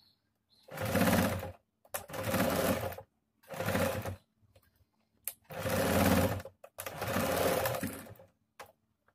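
Electric home sewing machine stitching in five short runs of about a second each, with brief stops between them, as it sews a double line of stitches.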